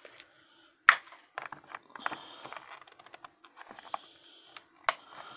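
Clicks and light rattling of a hard plastic toy container being handled and pried open: a Blume doll's plastic flower pot. There is a sharp click about a second in, then a run of smaller clicks and rustles.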